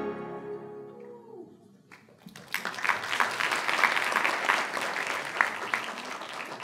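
Music fades out, and then, about two seconds in, an audience breaks into applause that carries on and tapers near the end.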